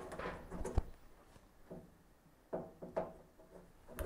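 Faint handling sounds, light knocks and rubbing, as a hand works in behind a milling machine to unplug an electronic controller's cable. The sharpest knock comes about a second in.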